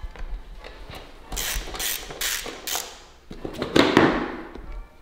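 Socket wrench ratchet clicking in several short runs as a dirt bike's seat bolt is backed out. A louder scrape and knock follows about four seconds in as the seat is pulled up off the frame.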